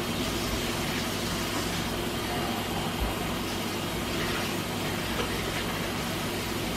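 A steady low hum under an even hiss, with no distinct events: continuous background room noise.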